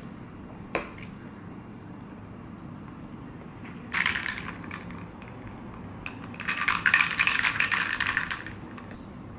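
Small hard objects rattling: a single click, a short burst of rattling about four seconds in, then a denser spell of it lasting about two seconds.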